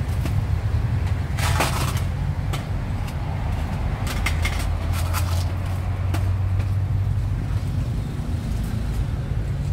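Steady low rumble of road traffic, with two short bouts of clattering and clinking: one about one and a half seconds in, another about four seconds in.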